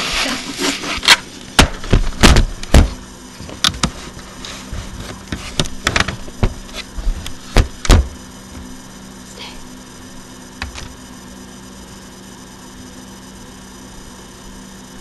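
Handling noise of a webcam being moved and set in place: a string of sharp knocks and bumps over the first eight seconds. After that a steady low hum remains, with a couple of faint taps.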